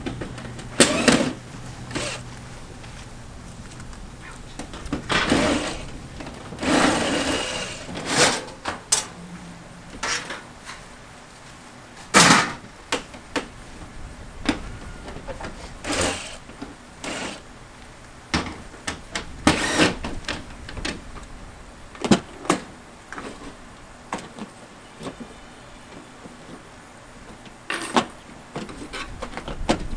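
Irregular knocks, clanks and scraping of hand demolition: metal siding and an old window being pried, pulled and rattled off a mobile home's exterior wall, with a few longer scraping rattles between the sharp knocks.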